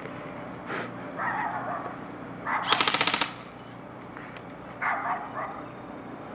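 Airsoft gun firing a rapid full-auto burst of about half a second, nearly three seconds in, with fainter, shorter bursts of noise before and after.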